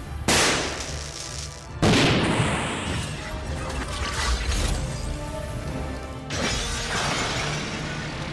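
A dramatic film-score soundtrack with three sudden crashing, shattering sound effects laid over it. The hits come a moment in, near two seconds and a little after six seconds, and each dies away over a second or two.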